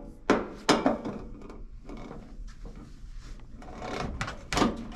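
Sharp metallic knocks and clicks with some scraping as a Phillips screwdriver works the side-panel screws of an espresso machine: a few strong knocks in the first second and another couple near the end.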